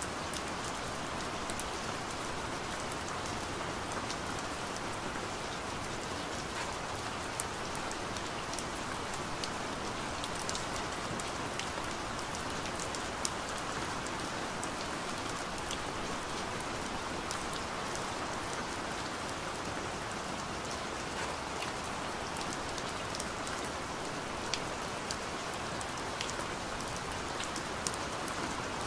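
Steady rain, an even hiss with scattered sharper ticks.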